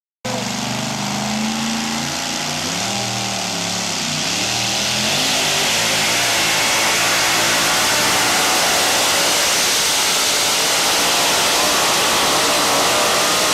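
A two-wheel-drive pulling pickup's engine at full throttle, hauling a weight-transfer sled down the dirt track. Its pitch wavers over the first few seconds, then the sound grows louder and denser from about five seconds in as the truck comes nearer.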